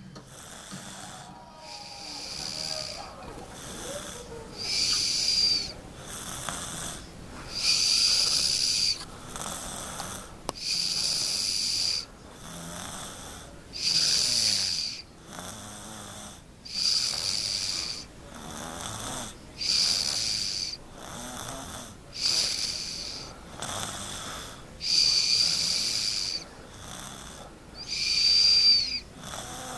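A young child snoring steadily in sleep, with a loud breath about every three seconds and a quieter one between. The loud breaths carry a high, wheezy whistle.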